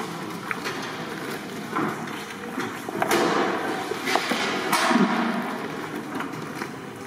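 Hands mixing marinated chicken pieces in a large metal pot: irregular wet squelching and slapping, with a few sharp knocks against the pot.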